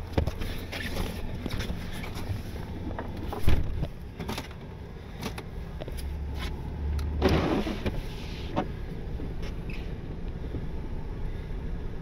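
Old Dodge pickup creeping down a snowy hill on tire chains, heard from inside the cab: the engine runs low and steady under scattered knocks and clanks, the loudest about three and a half seconds in, with a louder rumbling stretch a little past halfway.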